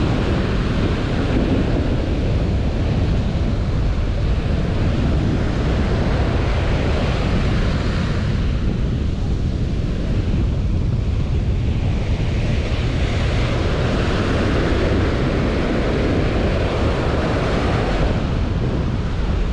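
Ocean surf breaking and washing up a sandy beach, a steady rushing wash, with wind buffeting the microphone in a low rumble.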